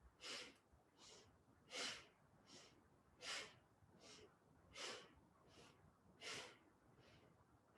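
Faint, rhythmic breathing through the nose in time with a yoga spinal-flex exercise. Short, sharp breaths come about every three quarters of a second, a stronger one every second and a half.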